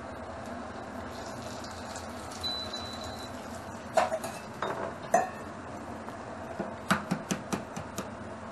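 Stainless steel bowl clanking as it is taken from a metal dish rack: a few sharp metal knocks with a short ring. Then a quick run of about six fading clinks as it settles on the counter, over a steady low hum.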